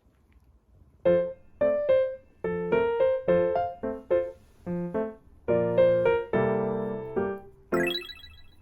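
Background music: a piano melody of single notes that starts about a second in.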